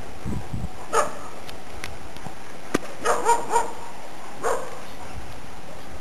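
A dog barking: one bark about a second in, a quick run of three about three seconds in, and a last bark a second later, over a steady hiss.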